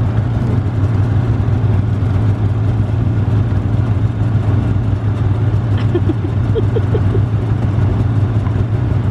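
Snowmobile engine running steadily with a constant low drone.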